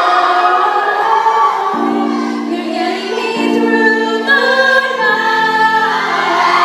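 Music with a choir of voices singing held chords that change every second and a half or so, with a melody line above them.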